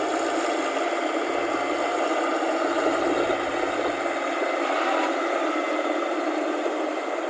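Rice combine harvester's engine running steadily, an even, dense machine noise.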